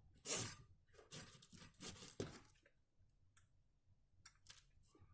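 Handling noises while soldering wires onto a power strip's contacts: a few short rustling, scraping bursts, then three light clicks near the end.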